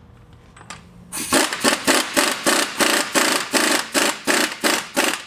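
Pneumatic impact wrench hammering on the wheel bearing's hub bolt, snugging it down before final torquing. It starts about a second in and runs in rapid pulses, about four a second, then stops just before the end.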